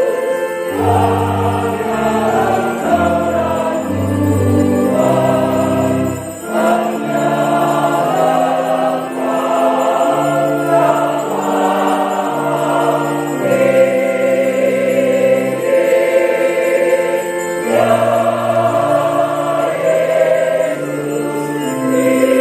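Mixed church choir of women and men singing a hymn in parts, in long held chords that change every second or so over a low bass line.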